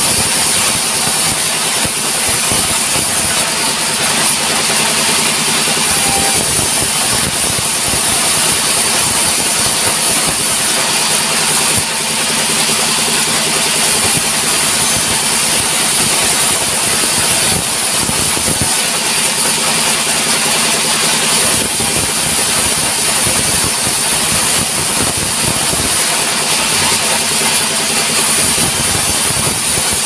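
Large vertical band saw running and ripping a log lengthwise: a steady, continuous high hiss from the blade cutting wood over the low, even hum of the machine's drive.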